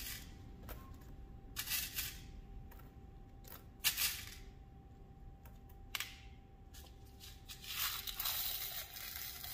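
Small pieces of glass frit rattling and scraping in a plastic cup as fingers pick through them, in a few short bursts with a sharp click near the middle and the longest burst near the end.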